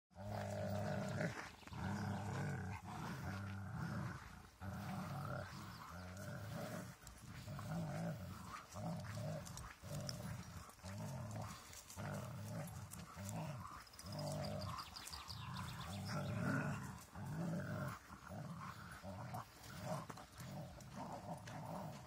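Dobermans growling in a tug over a long branch they both hold: a string of low growls, roughly one a second, with short gaps between them.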